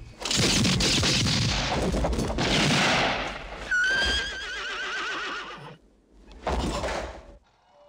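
A sudden, loud burst of gunfire with echoes, then a horse whinnying in a shrill, wavering call about four seconds in. A second short, loud burst comes near the end.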